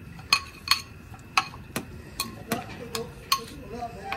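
Metal ladle clinking and scraping against a large steel pan and a ceramic bowl as paye gravy is ladled out, a run of sharp clinks about two a second.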